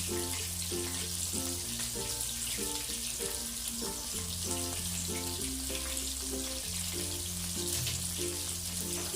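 Nestum-coated prawns frying in hot oil with a steady sizzle, under background music with a stepping bass line.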